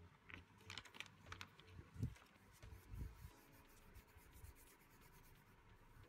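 Clear plastic album sleeve crinkling with a few short, sharp crackles as the album is slid out and handled in the first three seconds. After that there is softer rubbing of hands over the album's paper cover, over a faint steady fan hum.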